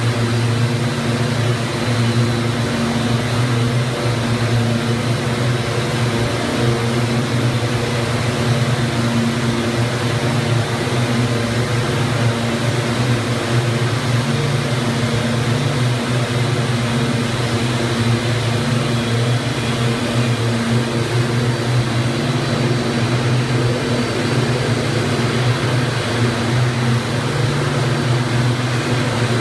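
DX268 two-for-one (TFO) yarn twisting machines running, many spindles turning at once. The sound is a loud, steady mechanical hum: a low drone with a whirring hiss above it.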